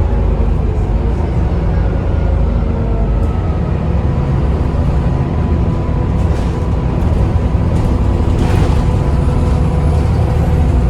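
Volvo B7TL double-decker bus running under way, heard from on board: a steady low engine rumble with a steady whine from the loud cooling fans over it. A brief hiss about eight and a half seconds in.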